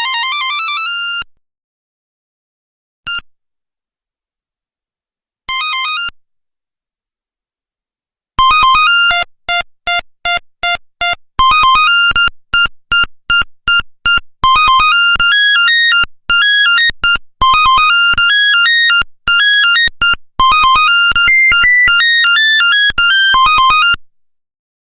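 Nokia 1100 mobile phone playing its monophonic tones one after another. A rising run of beeps ends about a second in, then comes a single short beep and a short phrase. From about eight seconds in to near the end, a long, fast melody of staccato beeps plays.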